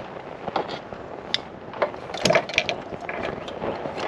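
A wiring harness loom being pulled loose and handled in a car's engine bay: its plastic connectors and clips click and clatter irregularly, with a burst of louder clatter about two seconds in.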